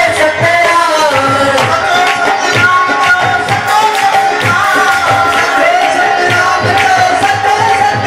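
Male voice singing a devotional dhuni chant over a hand drum keeping a steady rhythm.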